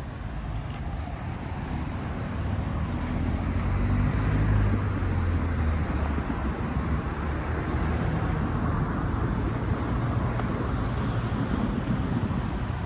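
Road traffic passing close by: a vehicle's engine and tyre noise swells to its loudest about four seconds in, then gives way to a steady traffic rumble.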